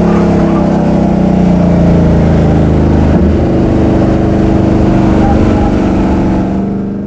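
Car engine running under load on a track, with the pitch shifting a little as the car changes speed, heard close from under the car along with tyre and road noise. The sound fades out near the end.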